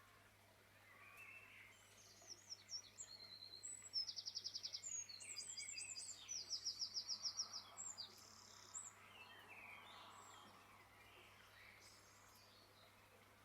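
Songbird singing: scattered high chirps, then two bursts of fast repeated notes, about four and six seconds in, over faint outdoor background noise.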